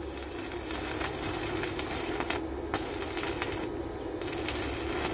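Stick welding arc from an inverter MMA welder, a steady crackle and sizzle of the electrode burning against the steel. The crackle stops briefly twice, about two and three and a half seconds in.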